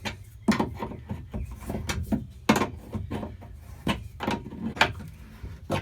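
A 7/16 wrench turning a nut down onto a stainless mast-base stud: a run of sharp, irregular metallic clicks and knocks as the wrench is worked and repositioned, with a faint low hum beneath.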